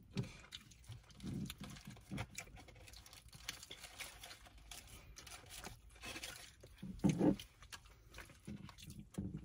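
Quiet eating sounds: chewing on burgers and fries, with soft crinkles and small clicks of food wrappers being handled. There is a brief louder sound about seven seconds in.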